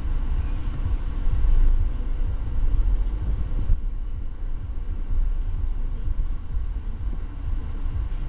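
Steady low rumble of a car's engine and road noise heard from inside the cabin as it moves slowly in traffic.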